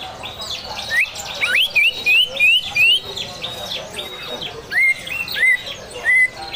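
Greater green leafbird (cucak hijau) singing in a loud, harsh style: a run of short rising whistled notes, quick-fire in the first half and slower, more spaced near the end.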